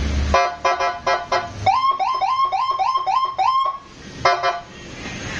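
Custom electronic police-escort ('patwal') siren: about five short chirps, then a fast rising yelp repeating about three times a second for two seconds, then two more short chirps.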